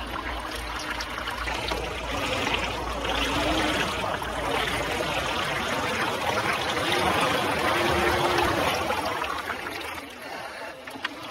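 Muddy water splashing and churning around the big lugged tyres of a radio-controlled SHERP-style amphibious ATV wading through a puddle, swelling and ebbing, and growing quieter about ten seconds in.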